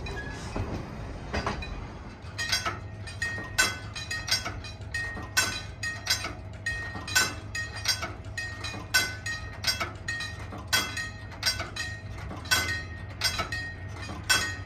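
Wigwag railroad crossing signal in operation: its bell starts ringing about two seconds in, in quick groups of about three strikes every two seconds, over a steady low hum.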